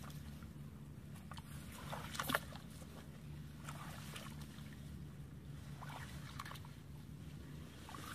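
Shallow pond water sloshing and splashing around legs wading slowly, in scattered separate steps, the sharpest splash about two seconds in, over a faint steady low hum.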